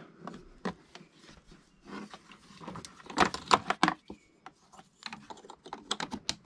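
Hard plastic air-intake parts and hose connectors in a Toyota GR Yaris engine bay being handled and pressed into place: a run of sharp clicks and knocks, loudest about three to four seconds in, with more quick clicks near the end.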